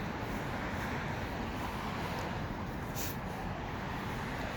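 Steady street traffic noise from passing cars, with one brief sharp high-pitched click about three seconds in.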